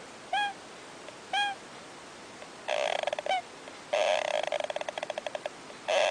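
An animal calling: two short, hooked chirps about a second apart, then bursts of rapid, rattling trills from about halfway through.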